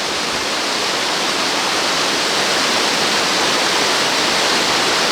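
Waterfall plunging into a pool, heard up close: a loud, steady rush of falling water.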